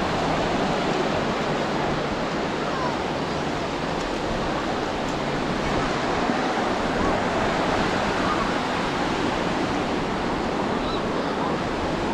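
Sea surf washing onto a beach, a steady, even rush of breaking waves.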